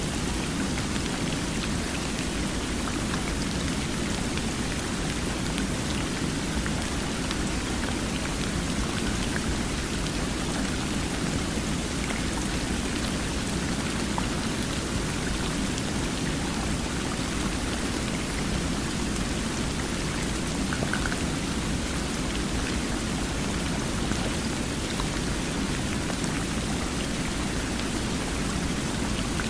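Flowing water rushing steadily and evenly with no breaks, with a few faint tiny ticks in it.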